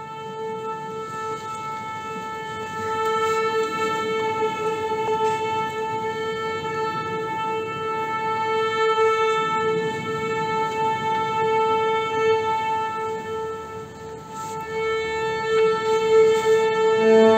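Orchestra tuning: one A held steady with slight swells in loudness. Near the end lower notes join in as the strings tune.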